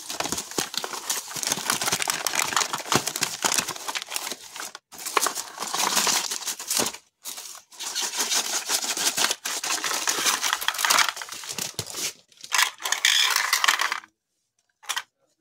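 Packaging of a mini desktop vacuum cleaner being handled and opened: a continuous crinkling, crackling rustle with a few short pauses, stopping suddenly near the end as the cleaner is lifted out.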